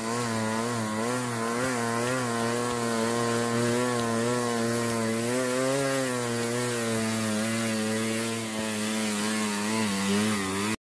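Small motorcycle engine running under a heavy load of logs, its note holding fairly steady with slight rises and falls in pitch. The sound cuts off abruptly near the end.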